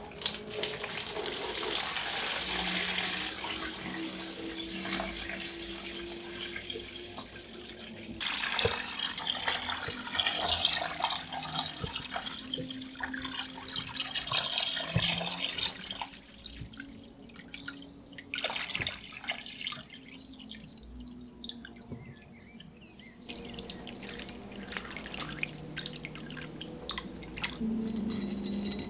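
Water poured from a watering can into a plastic tub, splashing and gurgling as the tub fills. The pouring is strongest over the first half, then eases to a lighter trickle.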